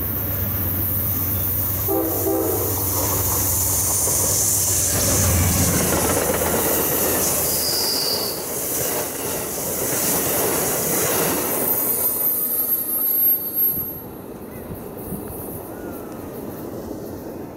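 Amtrak passenger train passing at speed, led by a P42DC diesel locomotive and trailing double-deck Superliner cars. A short horn blast sounds about two seconds in. Then the engine and the wheel and rail noise swell loudly as the cars rush by, and fade away after about fourteen seconds.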